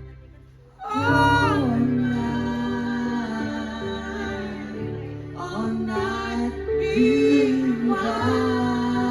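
A female voice singing a slow melody with held, sliding notes over instrumental backing. It comes in about a second in, after a brief lull.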